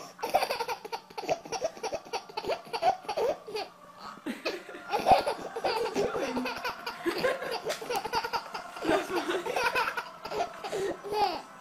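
Baby laughing again and again, with a short lull about four seconds in.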